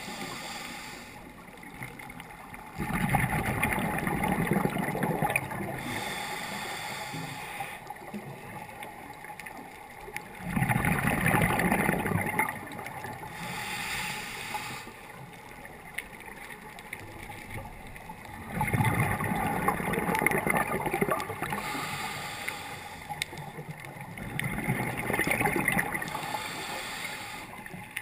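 A scuba diver's exhalations through the regulator, heard underwater: bubbling bursts of two to three seconds each, four times at intervals of about seven seconds, with a quieter hiss between breaths.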